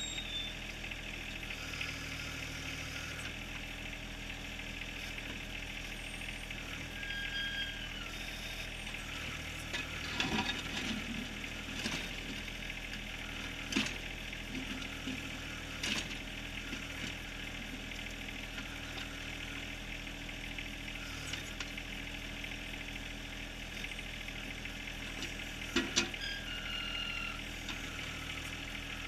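John Deere 1023R compact tractor's three-cylinder diesel running steadily under backhoe work, with a handful of sharp clanks from the steel bucket striking rock and bedrock, the loudest near the end.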